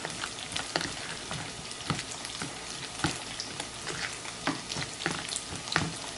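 A metal spoon stirring raw chili sambal in a plastic container, knocking against its sides in irregular clicks and taps, over a steady sizzle of tofu frying in oil.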